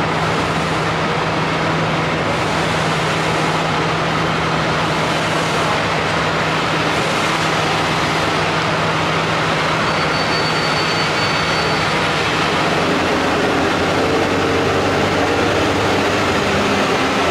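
Sri Lanka Railways Class B2b steam locomotive moving slowly into a station platform: a steady rush of steam and running noise with no clear exhaust beat, under a steady low hum that fades about two-thirds of the way through.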